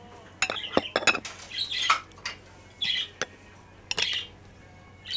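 Metal spoon clinking and scraping against a metal sauce bowl and a ceramic plate while yogurt sauce is ladled onto a kebab: a few sharp clicks among short, high scrapes.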